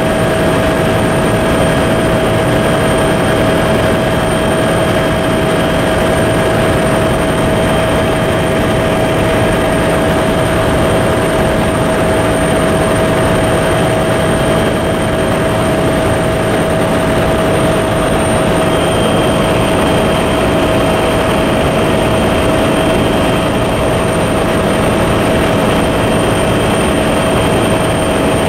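Steady engine and rotor noise of a helicopter in flight, heard from inside the cabin: a constant loud rush with a steady whine over it.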